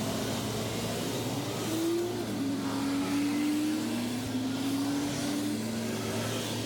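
A large truck engine pulling and accelerating through the gears: its pitch climbs, drops back at a shift and climbs again, over a steady low hum.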